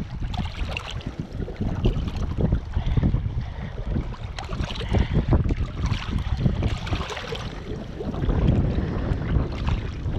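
Wind buffeting the microphone in gusts, with small waves lapping on a rocky shore and the rustling and small clicks of hands unhooking a channel catfish.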